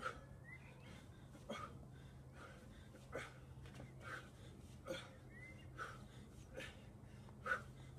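A man's short, forceful breaths in time with repeated kettlebell swings, a little faster than one a second: hard breathing from the exertion of the workout. A steady low hum runs underneath.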